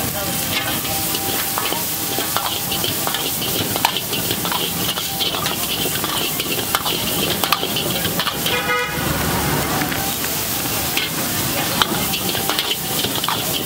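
Shredded cabbage sizzling in a hot iron wok over a gas burner, with a metal ladle repeatedly scraping and clanking against the wok as it is stir-fried. A brief horn honk sounds about nine seconds in.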